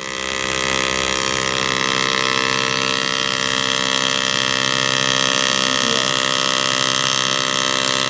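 Electric welding arc buzzing steadily: a loud, even hum of many held tones that starts abruptly and does not change.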